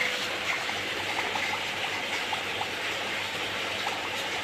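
Steady rushing, water-like noise, with a few faint ticks.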